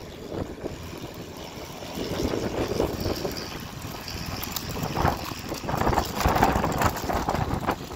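Wind buffeting the phone's microphone in gusts, a rough low rumble that grows louder about five seconds in.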